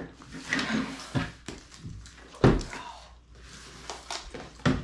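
Cardboard box being shaken and handled to slide it open: scattered rustles and light knocks, with a heavier thump about halfway through and a sharp knock near the end.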